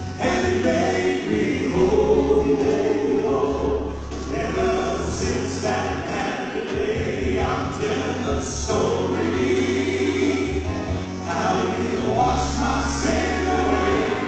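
Male gospel quartet singing a gospel song together in harmony, amplified through the hall's PA, with a steady low bass line beneath the voices.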